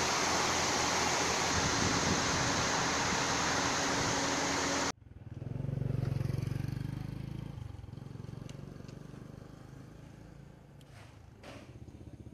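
Steady loud hiss of a heavy downpour that cuts off abruptly about five seconds in. It is followed by a low rumble that swells and fades over about two seconds, then quiet outdoor ambience with a few faint clicks near the end.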